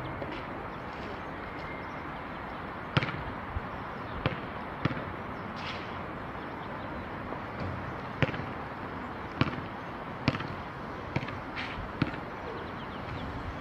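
A basketball bouncing on an outdoor court: sharp single thuds at uneven intervals, roughly one a second, over a steady background hiss.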